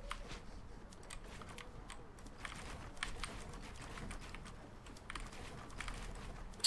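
Keystrokes on an Asceny One 60% mechanical keyboard with Gateron Brown switches: irregular, quick key clicks as the keys are pressed during play, with one sharper, louder click near the end.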